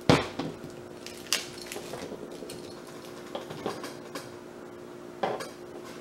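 Stainless steel link bracelet and clasp of a Chicane chronograph watch clinking as it is handled and flexed in the hand: a few sharp metallic clinks, the loudest at the start, another about a second in and one near the end, with lighter taps between. The solid links do not rattle loose.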